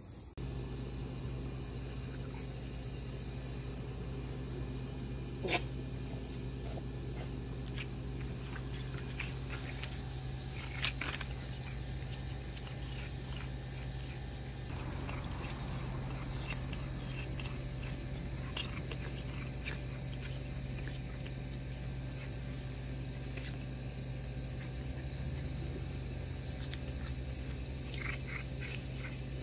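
Insects chirring steadily in a high, hiss-like drone, over a low steady hum, with one sharp click about five seconds in and a few faint ticks later.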